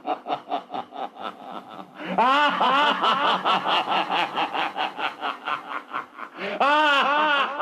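A man laughing: soft, breathy chuckles at first, then from about two seconds in a loud, long run of rhythmic 'ha-ha' laughter, each pulse rising and falling in pitch, with a short lull near the end before a last loud stretch.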